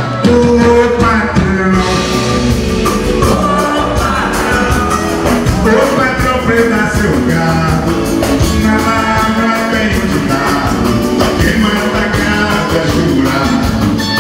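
Live samba band played loud through a PA, with a lead vocal over bass and fast percussion, recorded from within the crowd.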